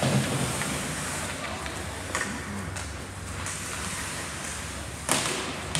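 Ice hockey game sound heard from the stands: a steady rink noise of skates on ice and the crowd. There are sharp clacks from the play about two seconds in, and a louder one about five seconds in.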